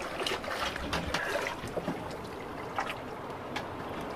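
Small irregular splashes and gentle lapping of calm seawater stirred by a swimmer's slow strokes.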